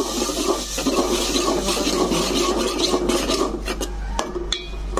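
Steel spoon stirring and scraping onion, garlic and ginger paste in an aluminium pot over the sizzle of frying oil. A run of sharp clinks of spoon on pot near the end.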